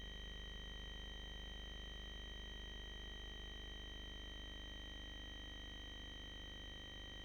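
Steady electronic hum with a few thin, unchanging high whining tones: electrical noise from the nest box camera's recording setup, with no bird calls.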